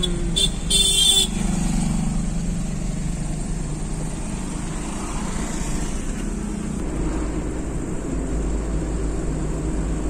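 Car driving, heard from inside the cabin as a steady low road and engine rumble. In the first second a vehicle horn toots twice, once briefly and then a little longer.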